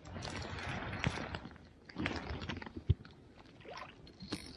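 Handling noises in a small boat: a rustling, splashy wash for the first second and a half, then scattered knocks, with one sharp knock about three seconds in.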